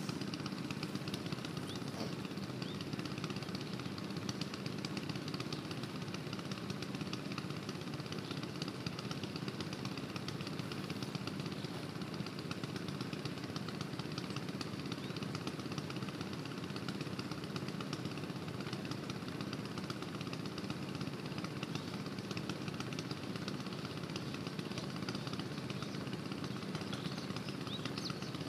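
Kirloskar 5 hp water-pump engine running steadily at an even speed.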